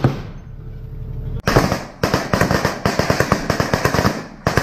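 Armoured vehicle's engine running, then about a second and a half in a heavy volley of small-arms fire: several rifles and machine guns shooting rapid, overlapping bursts for nearly three seconds, with one more shot near the end.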